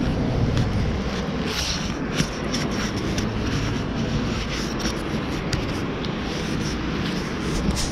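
Honda VTX1800C's V-twin engine running steadily, a low rumble, with clicks and rubbing from a hand handling the camera against a leather jacket.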